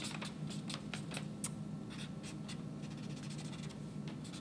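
Short, irregular scratching and rustling clicks over a steady low hum.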